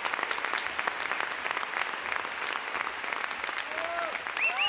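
Theatre audience applauding, a dense and steady clapping. Near the end a few pitched, gliding tones come in over the applause.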